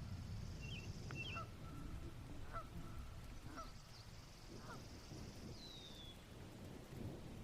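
Faint bird calls: short calls repeating about once a second, a few higher chirps, and one falling whistle about three-quarters of the way through, over a steady low rumble.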